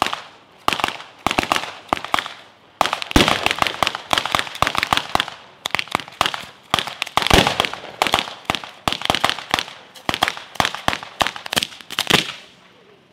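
Neapolitan-style firecracker battery (batteria alla napoletana): petards hung along bamboo rails going off in quick, irregular runs of sharp bangs with short pauses between clusters, stopping shortly before the end.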